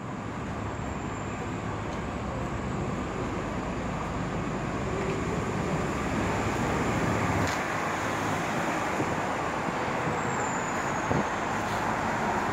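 A Nova Bus LFS articulated hybrid bus, with a Cummins ISL diesel and Allison EP 50 hybrid drive, running as it pulls in and passes close by, growing gradually louder. The low engine rumble falls away about halfway through, and there is a single sharp click near the end.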